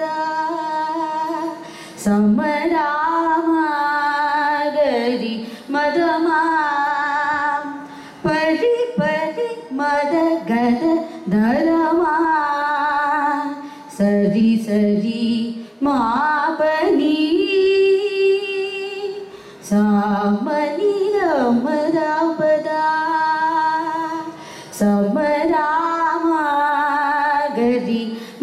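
A woman singing a Carnatic composition in raga Simhendramadhyamam. She sings in phrases broken by brief pauses, with the pitch wavering and sliding between notes in ornamented gamakas.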